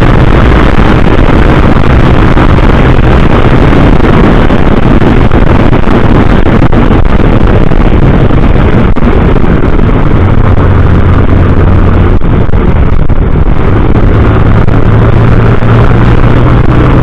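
Motorcycle engine running steadily while riding, under loud rushing wind noise on the microphone; the low engine note shifts slightly a couple of times.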